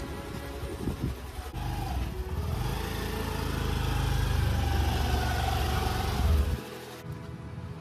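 Honda scooter's small single-cylinder engine running at low speed as it is ridden in, rising a little in pitch midway, then switched off about six and a half seconds in.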